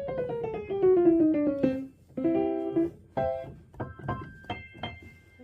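Piano played: a quick run of notes falling in pitch, then a held chord about two seconds in, followed by several short struck chords and notes.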